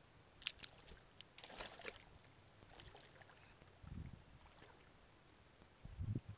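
Faint shallow seawater sloshing and trickling close to the camera, with a quick run of clicks and crackles early, then two dull low thumps.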